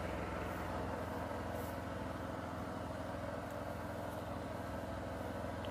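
An engine running steadily at an even speed, a low hum that does not change.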